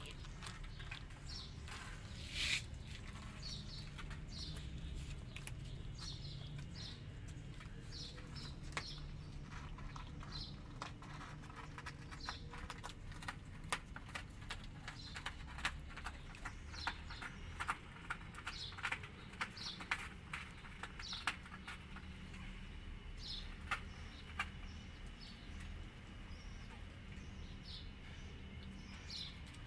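A kitten crunching dry kibble, heard as many sharp irregular clicks, thickest in the middle stretch. Small birds chirp in short high notes in the background throughout.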